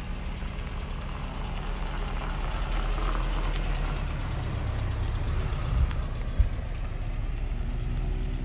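Subaru BRAT pickup's flat-four engine running at low revs as it drives slowly past and away, its low rumble growing louder as it passes. A single sharp knock about six seconds in.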